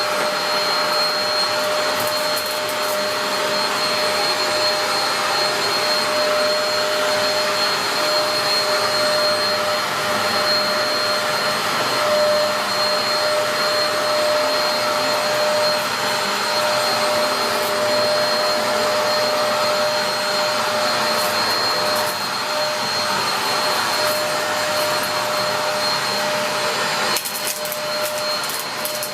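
Dyson DC03 dual-cyclone upright vacuum cleaner running continuously: a rush of air under a steady motor whine, with occasional faint clicks. Its level drops slightly near the end.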